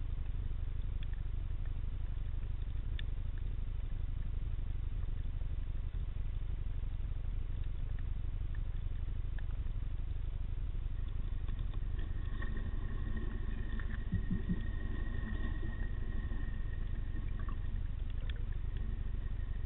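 Underwater ambience picked up through a camera housing: a steady low rumble with a few faint scattered clicks. About two-thirds of the way through, a steady multi-pitched hum joins in, typical of a distant boat motor heard through the water.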